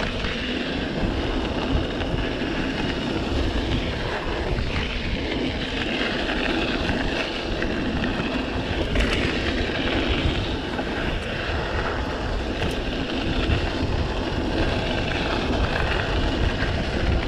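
Steady wind rush and rumble over the microphone of a mountain bike being ridden at full speed down a dirt trail.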